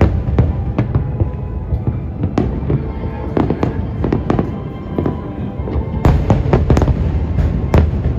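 Aerial fireworks bursting in a quick, continuous string of sharp bangs over a steady low rumble, with a louder cluster of bangs about six seconds in.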